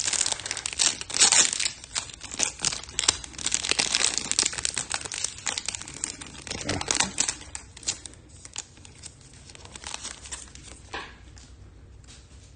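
Crinkling and tearing of a Topps Chrome trading-card pack wrapper being ripped open by hand. The crackle is densest in the first several seconds and thins out to a few scattered rustles after about eight seconds.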